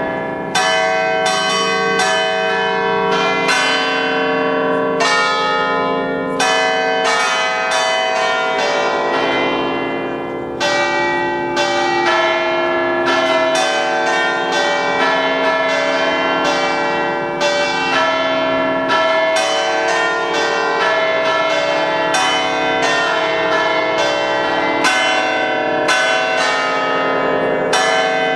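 Eight tower bells cast by Pasquale Mazzola in 1879 and tuned as a ring in C, struck in quick succession to play a tune. The notes come several a second, and each one rings on under the next.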